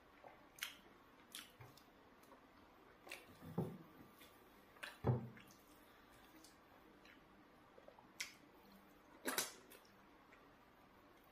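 Soft, wet squelches and clicks of eating by hand: fingers pinching and scooping eba and spinach soup off the plate, with mouth sounds of chewing. A handful of short sharp clicks, the loudest about five seconds in and a cluster about nine seconds in.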